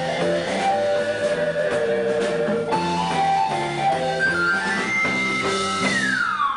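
Live rock band with keyboards, guitar, bass and drums playing a bouncy, staccato instrumental melody over a steady beat. Near the end a synthesizer chord glides steeply down in pitch.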